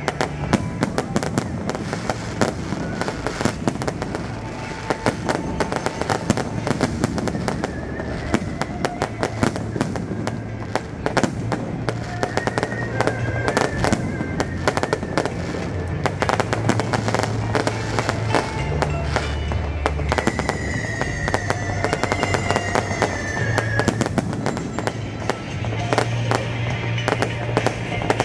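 Fireworks going off without a break: a dense run of bangs and crackling from aerial shells and low bursts, with music playing underneath.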